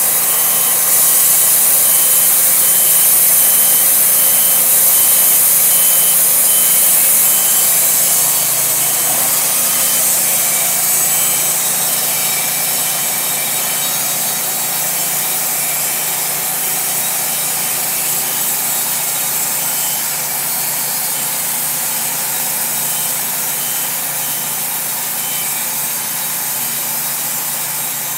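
Wood-Mizer LT40 band sawmill running, its engine humming steadily while the band blade saws through a Douglas fir piling as the head travels along the log. It eases off slightly after about eight seconds.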